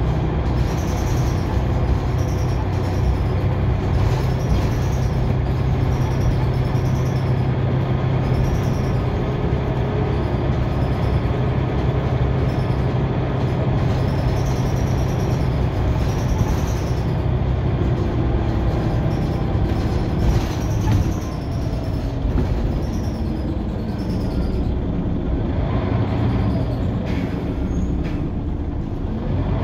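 Scania OmniCity single-deck bus heard from inside the saloon on the move: its rear-mounted diesel engine runs with a steady low drone along with road and body noise. The engine note changes about two-thirds of the way through, with a brief louder burst, and the bus is a little quieter after that.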